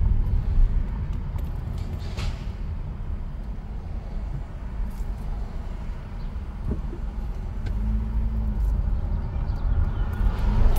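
Car driving, heard from inside the cabin: a low road-and-engine rumble that eases off in the middle and builds again near the end.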